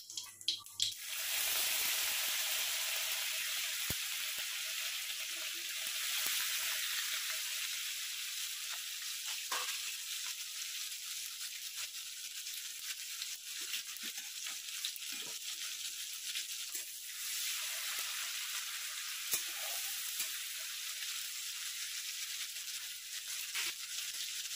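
Hot oil sizzling in a kadai as crushed ginger and tomato pieces go into a tempering of cumin seeds and dried red chilli. The sizzle starts strongly about a second in and eases off gradually, with a few small clicks and scrapes of a spatula.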